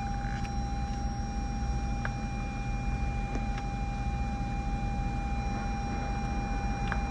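Steady low rush and hum of a running 2017 Lexus RX350 heard inside its cabin, with a thin steady whine over it. A few soft clicks come as climate-control buttons are pressed.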